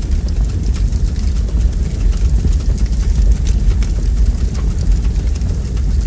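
Burning wood logs crackling: a steady low rumble of flames with frequent sharp snaps and pops, and one louder pop at the very end.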